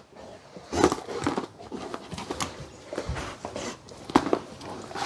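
A dog moving about on a carpet with scattered light knocks and rustles as it picks up rubber toys and drops them into a plastic tub.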